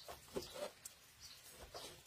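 A metal ladle scraping and clinking faintly in a steel pot of sauce, a few short soft sounds, with faint chirping in the background.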